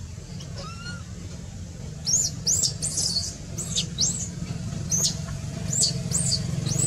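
Baby monkey giving a run of short, high-pitched squeaks, about two a second, starting about two seconds in, after a single softer arched call near the start. A steady low hum runs underneath.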